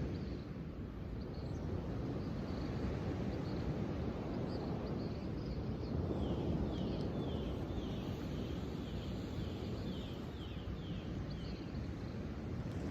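Steady low outdoor wind noise, with a small bird calling faintly and, from about six seconds in, singing a run of about ten short falling notes.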